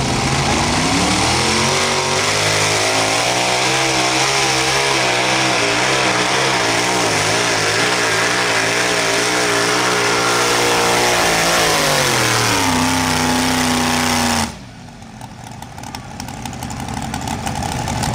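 Engine of a Farmall 1206 light modified pulling tractor revving up at the launch and held at high revs under load through the pull, its pitch wavering. About twelve seconds in the revs fall away. About two seconds later the sound drops suddenly to a much quieter level, then builds again with rising revs near the end.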